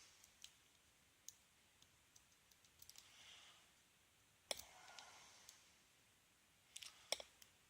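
Faint, scattered clicks of a pick and tension wrench working the pins in the keyway of a Yale Y221/52 padlock during single-pin picking. The loudest click comes about halfway through, and a quick run of clicks comes near the end.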